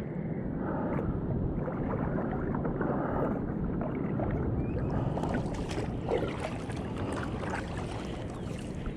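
Kayak being paddled across calm water: a double-bladed paddle dipping and pulling through the water stroke after stroke, with splashing and dripping off the blades that becomes clearer about halfway through, over a steady low rushing.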